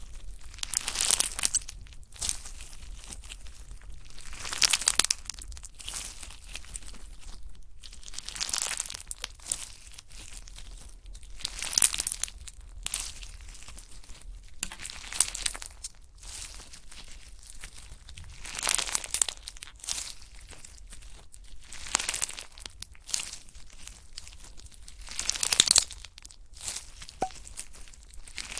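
Slime being squeezed and pressed by hand, giving crackling, popping bursts about every three to four seconds.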